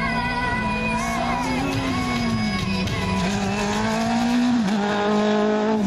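Background music with a single-seater race car's engine running underneath as it drives the slalom course.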